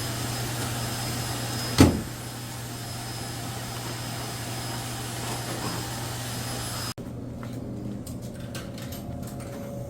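Steady low machine hum with hiss, broken by a single sharp knock about two seconds in; near seven seconds it drops abruptly to a quieter hum with a few faint clicks.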